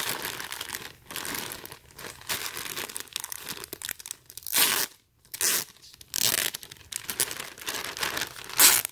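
Clear plastic bag crinkling and rustling as it is pulled open and handled, in irregular bursts, with louder sharp rips about halfway through and near the end.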